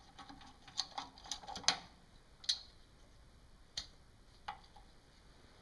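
Small, irregular metallic clicks and brief scrapes of a screwdriver backing screws out of a metal faceplate, about a dozen light ticks spread unevenly, thickest in the first two and a half seconds.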